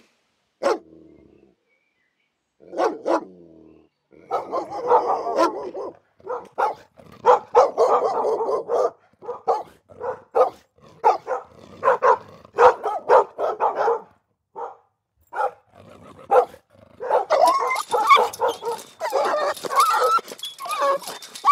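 A dog barking and yipping again and again in short calls, often about two a second, growing busier near the end.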